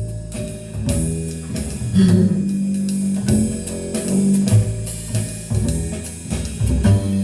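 Instrumental opening of a song played back over hi-fi loudspeakers: a prominent bass line with electric guitar and a drum kit, before the vocal comes in.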